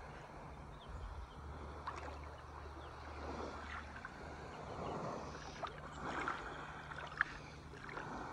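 Shallow seawater sloshing and lapping, with soft splashes as dogs wade and swim, over a low steady rumble.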